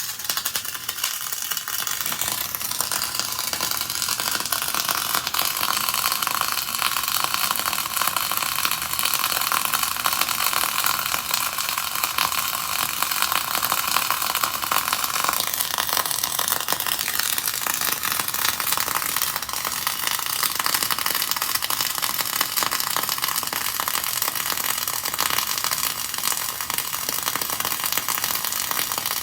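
Flux-cored arc welding in the horizontal (2G) position: the wire-fed arc running continuously as a dense, steady crackle, its tone shifting slightly about halfway through.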